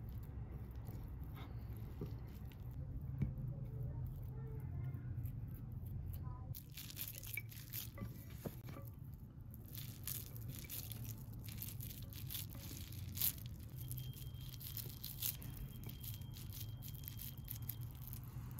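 Hands squeezing and pressing a moist, crumbly chopped-vegetable meatless burger mixture into a patty: wet crackling squishes that get much busier about six seconds in, over a steady low hum.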